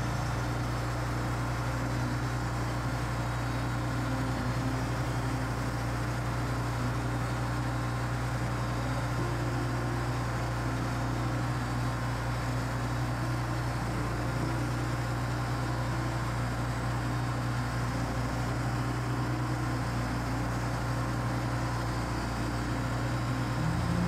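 Wood-Mizer LT40 portable band sawmill running, its engine a steady, unchanging hum as the saw head works a log.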